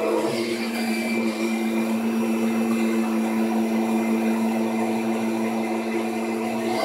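Vacuum cleaner running steadily, its motor giving an even hum.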